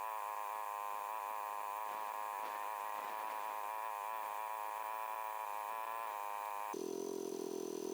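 Farm tractor engine running steadily with a buzzing drone. Near the end its pitch drops abruptly to a lower, different note.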